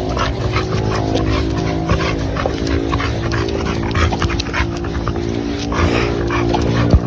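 A dog vocalizing over steady, sustained music-like tones, with many short sharp sounds.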